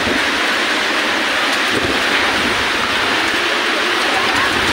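Heavy storm rain and gusting wind: a loud, steady rush, with wind buffeting the microphone.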